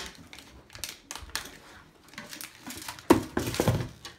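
Small plastic toys and their packaging handled on a table: scattered light clicks and rustling, with a louder burst of crackling handling noise about three seconds in.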